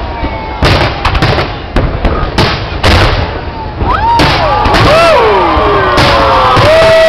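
Fireworks going off in a rapid series of sharp bangs. About four seconds in, the sound becomes a steady loud wash filled with many overlapping whistling tones that rise and fall.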